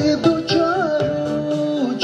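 A man singing a Bhutanese song live through a microphone over instrumental accompaniment with a steady beat, holding long notes, one of which bends up and back down about a second in.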